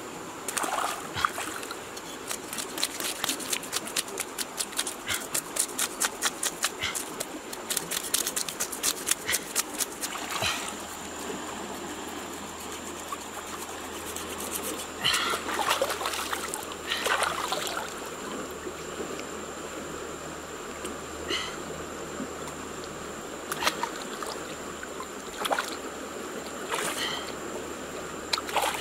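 Quick rhythmic scraping strokes, several a second, for the first several seconds, then scattered splashes and trickles of water: a fish being scaled with a knife and rinsed in shallow river water. A steady high insect buzz runs underneath.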